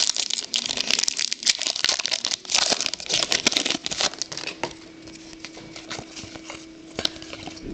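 Foil trading-card pack wrapper crinkling and tearing as a pack is opened and cards are handled, busiest in the first half; a faint steady hum sits under the quieter second half.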